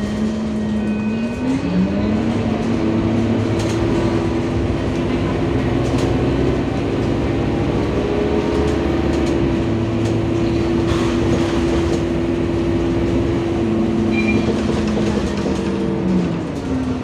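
Euro 4 Scania city bus heard from inside the saloon while under way. The drivetrain whine climbs in pitch as the bus pulls away, about two seconds in, holds steady while it cruises, and drops back near the end as it slows. Underneath runs a steady road and engine rumble.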